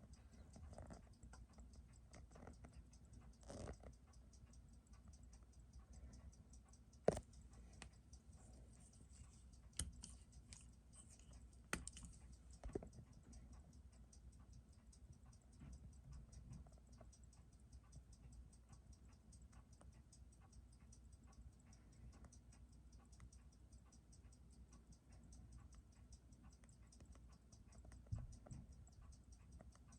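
Faint, fast, even ticking of a cased Seiko 6139 automatic chronograph movement beating at 21,600 an hour, about six ticks a second, picked up by a timegrapher. A few sharper clicks come through, the loudest about seven seconds in and another near twelve seconds.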